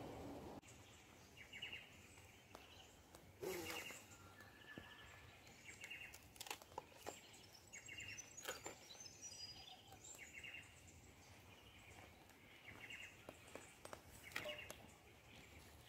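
Faint birdsong: short bird calls repeated every second or two, with a quick falling run of high notes about halfway through. A brief knock comes a few seconds in.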